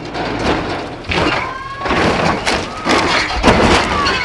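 Ford F-150 pickup truck tumbling down a steep dirt embankment in a rollover crash test: a rapid string of heavy crashing impacts as the body slams against the ground, over a rushing noise of dirt and debris.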